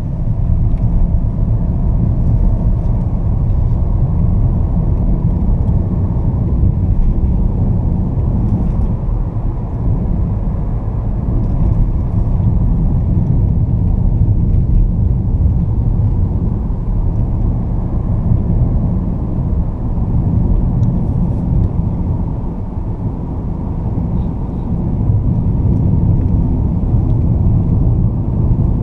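Inside the cabin of a 2020 Fiat Toro Volcano, its 2.0 four-cylinder turbodiesel and tyres make a steady low rumble while the pickup gathers speed. The rumble eases briefly about two-thirds of the way through, then builds again.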